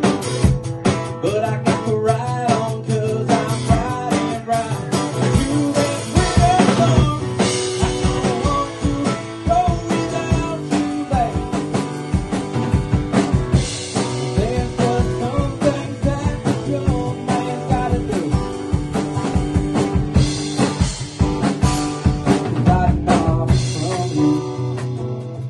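Live band playing a rock song: an acoustic guitar strummed over a drum kit. Near the end the drums thin out, leaving mostly the strummed guitar.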